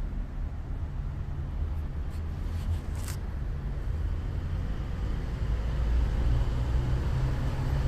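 Steady low background rumble, growing a little louder in the second half, with a few faint short clicks about two to three seconds in.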